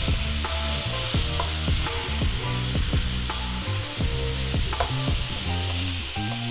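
Ground beef and pork sausage sizzling as they brown in a skillet, with a spatula stirring and breaking up the meat. Background music with a steady beat and a bass line plays underneath.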